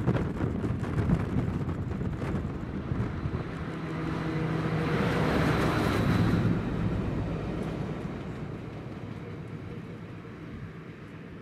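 A Class 60 diesel freight locomotive's eight-cylinder Mirrlees engine working as it hauls a loaded tank train past and beneath. The engine's steady note grows to its loudest about five to six seconds in as the locomotive passes, then fades into the rolling rumble of the tank wagons.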